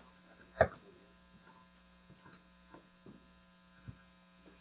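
Steady electrical hum with room noise, broken by one sharp thump about half a second in and a few faint knocks.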